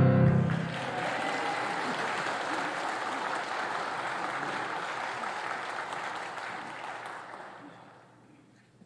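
Congregation applauding at the end of a choir's song, the final sung chord cutting off about half a second in. The clapping is steady, then fades away near the end.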